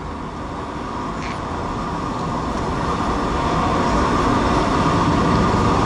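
Road traffic noise growing steadily louder as a vehicle approaches.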